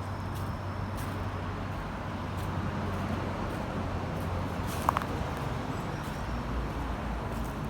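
Outdoor background noise with a steady low hum, like a distant engine or traffic, and one short, sharp squeak about five seconds in.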